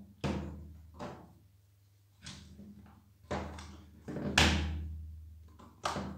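Hard plastic pressure washer trigger gun and screwdriver knocking against a table as they are handled, six separate knocks at irregular spacing, the loudest about four and a half seconds in.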